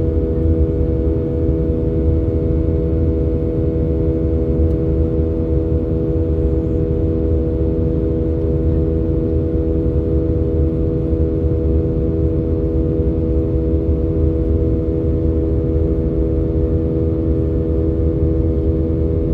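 Cabin noise inside an Airbus A320-232 in its climb: a steady, loud roar of airflow and IAE V2500 turbofan engines, with a constant hum of several steady tones over it.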